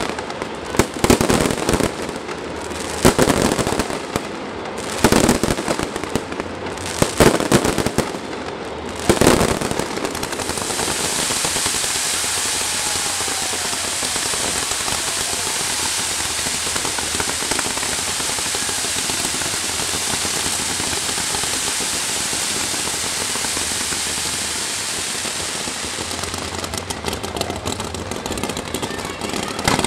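Fireworks show: aerial shells bursting in a string of separate loud bangs for the first ten seconds, then a dense, continuous crackle that runs on without a break, with single bangs returning near the end.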